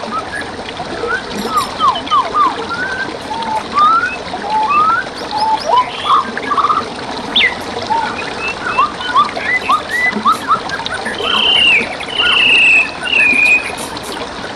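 Songbirds chirping and whistling in quick, varied short notes over a steady trickle of flowing forest water, with three longer drawn-out whistles near the end.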